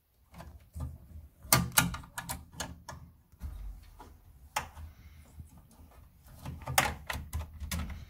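Irregular clicks and taps of stiff electrical wire being pushed through and bent among the plastic circuit breakers and casing of a consumer unit, with sharper clusters of clicks about a second and a half in and again near seven seconds.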